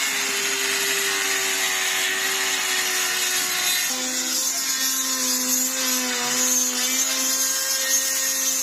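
Electric hand grinder running as it grinds down a worn shaft bushing stuck on a wheat combine's vertical shaft, to free it. A steady hum with a high grinding hiss; the motor's pitch drops about four seconds in.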